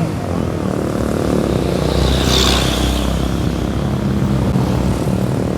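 Bus diesel engine running with a steady low drone, and a brief hiss about two seconds in.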